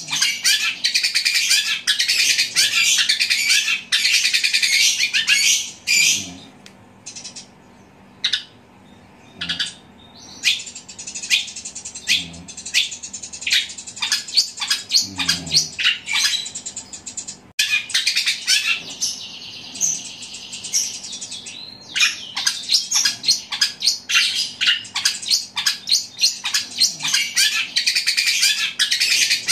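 Caged long-tailed shrike singing a fast, loud chattering song that mimics fighting house sparrows. It starts as dense rapid notes, thins to scattered single calls around a third of the way in, then comes back dense and rapid in the last third.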